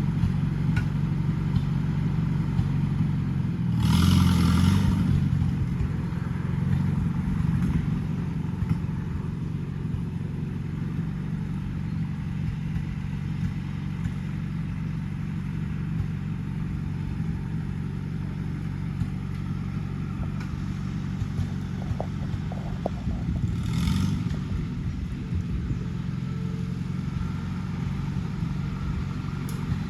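Rebuilt 1953 Farmall Super C tractor's four-cylinder gasoline engine running steadily after its first start following the rebuild. It briefly gets louder and rougher twice, about four seconds in and again near the 24-second mark.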